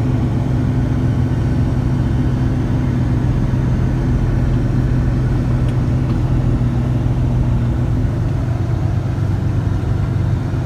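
A steady, loud engine drone with a fixed low hum, which drops slightly in pitch about eight seconds in.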